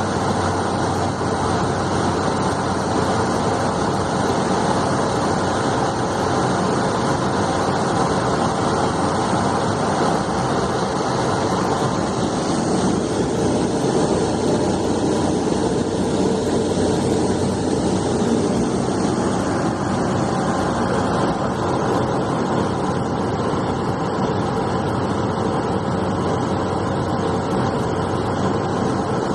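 Steady drone of a Cessna 208B Grand Caravan's turboprop engine and propeller, heard from inside the cockpit, with a constant hum under broad rushing noise. The drone thickens slightly in the middle stretch.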